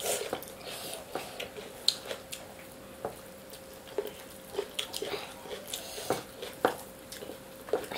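Close-up eating sounds of two people eating mutton biryani by hand: chewing and lip smacks, with wet squishes of fingers mixing rice and scattered short clicks, over a faint steady hum.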